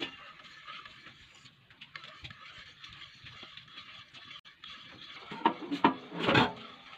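Metal spoon stirring cream and condensed milk in a small bowl, faint scraping and light ticks against the bowl. Near the end come a few louder knocks and a short, louder noise.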